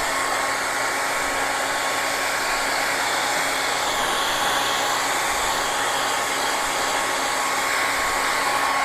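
Hand-held hair dryer running steadily: a rush of air with a steady motor whine. It is blowing warm air around the edges of a phone to soften the adhesive holding the back panel.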